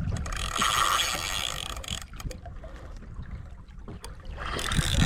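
Low rumble of wind and water around a small fishing boat, with a hissing, whirring mechanical sound from about half a second to two seconds in and again just before the end.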